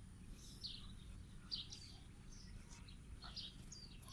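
Faint, scattered bird chirps, several short high notes a second or so apart, over low steady background noise.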